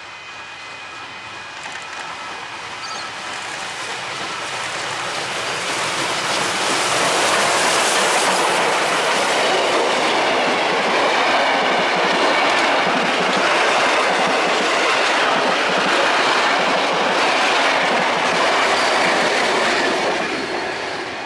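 Steam-hauled heritage train approaching and passing close by, its string of vintage passenger carriages rolling on the rails. It grows louder over the first seven seconds or so, stays loud while the carriages go by, and drops away near the end.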